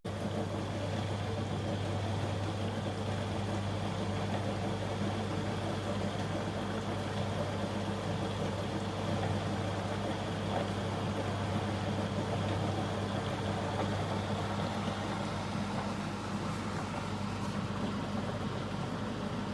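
Steady machine hum: a constant low drone under an even rushing noise.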